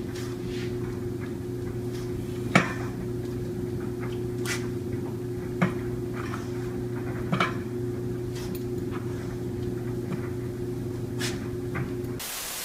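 A stainless-steel dog bowl clinking on a tiled floor as a dog eats from it: about five sharp clinks spread out, the first loudest, over a steady low hum.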